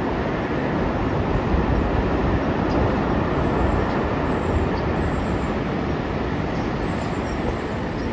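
Steady wind blowing over the microphone, a continuous rushing noise with a buffeting low rumble.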